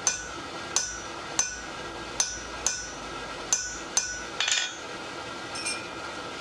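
Blacksmith's hand hammer striking a steel punch held on red-hot steel on the anvil: about seven blows, roughly one every two-thirds of a second, each with a short metallic ring. Near the end a brief clatter of steel tools being set down on the anvil face.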